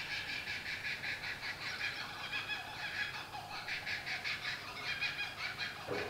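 A group of laughing kookaburras calling in chorus: a long run of rapid repeated cackling notes, about six a second, that thins briefly a little past the middle.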